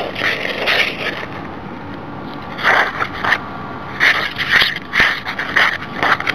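A utensil scraping and stirring a thick, sticky spread mixture around a bowl in irregular strokes, with a lull about a second in before the scraping picks up again.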